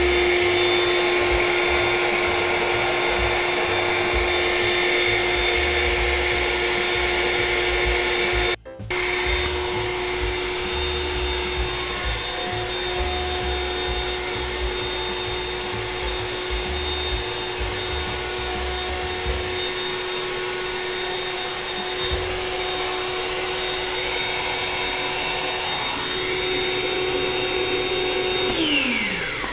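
Built-in electric air pump of an Intex Dura-Beam Deluxe airbed running with a steady hum as it inflates the mattress, with a brief break about nine seconds in. Near the end it is unplugged, and its hum falls in pitch as the motor winds down.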